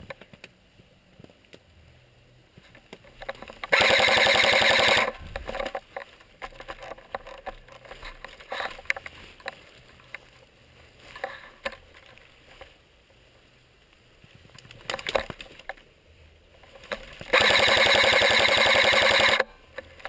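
Two long full-auto bursts from an airsoft electric gun, very rapid and loud, the first about a second and a half long a few seconds in and the second about two seconds long near the end, with scattered single clicks and rustling between.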